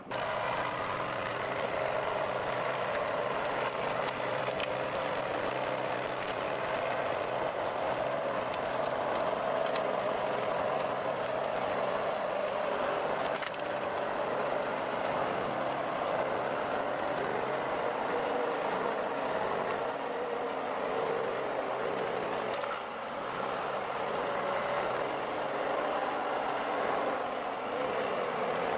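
Heavy forestry machine running steadily, with a thin high whine that wavers slightly in pitch over its engine noise.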